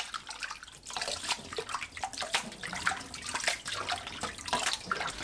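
A hand swishing blanched lettuce through a stainless steel bowl of cold water to rinse it, with irregular splashing and sloshing.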